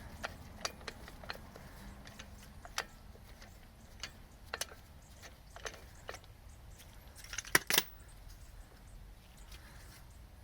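Scattered light metallic clicks and clinks of tools and brake parts being handled, with a louder pair of clinks about three quarters of the way through.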